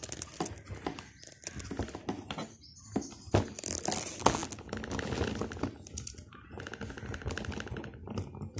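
Irregular small clicks and scrapes as wires are handled at a plastic contactor's terminals and a screwdriver turns the terminal screws.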